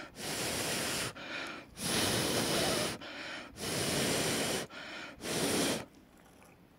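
A person blowing by mouth on freshly applied hot-melt glue to cool and set it faster: four long blows with shorter breaths drawn in between, stopping about six seconds in.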